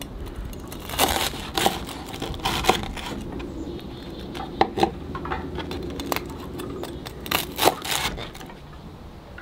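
Chef's knife cutting through crisp toasted grilled cheese sandwiches on a wooden cutting board: a scattered series of sharp crunches and knocks, with the loudest clusters about a second in and again around seven to eight seconds in.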